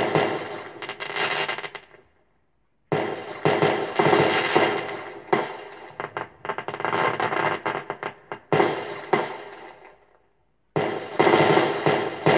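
Aerial firework shells bursting, with sharp bangs and crackling tails. They come in clusters of several rapid reports, with short silent gaps between the clusters.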